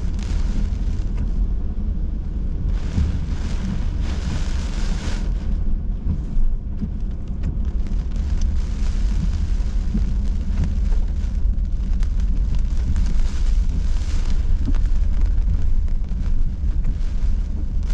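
Inside a moving car in hurricane weather: a constant heavy low rumble of wind and driving, with wind-driven rain hissing against the car. The rain rush swells around three to five seconds in and again around thirteen seconds.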